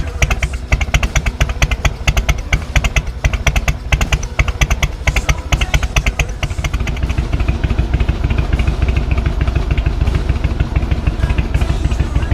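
Harley-Davidson FXSTB Night Train's Twin Cam 88 V-twin running through a BSL aftermarket exhaust, with uneven loping exhaust pulses. From about halfway through, the pulses come quicker and a little louder as the engine picks up.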